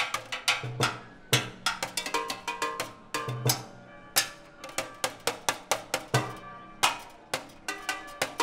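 Drumsticks playing a percussion instrument improvised from a painted 20-litre jerrycan and a mounted box: a quick run of sharp metallic hits, about three a second, some ringing, mixed with deeper thuds.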